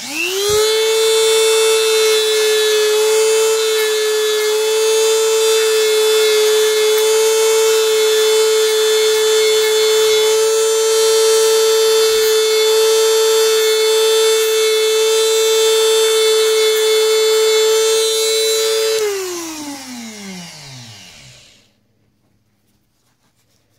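Handheld rotary tool with a sanding drum spinning up and running at a steady high whine as it grinds into a folding knife's G10 handle scale. About 19 seconds in it is switched off and winds down, its pitch falling.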